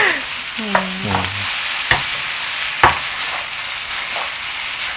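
Diced vegetables (potato, carrot, shiitake mushroom, soy ham) stir-frying in oil in a hot pan, a steady sizzle. A wooden spatula knocks sharply against the pan a few times.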